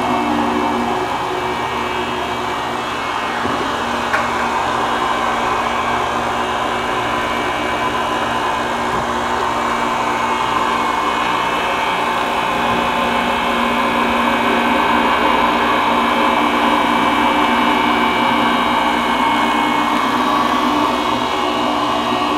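Electric fish grinder running steadily as it grinds fish into chum, a continuous motor drone with several held tones. A brief knock sounds about four seconds in.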